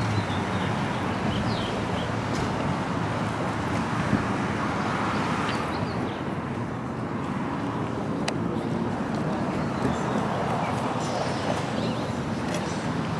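Steady outdoor rumble of vehicle engines running, with faint voices in the background.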